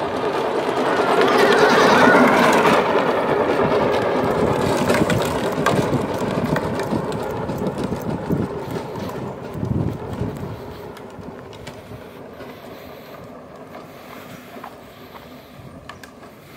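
A custom 24-volt electric children's trike driving on asphalt, its motor and wheels loudest about two seconds in, then fading as it moves away.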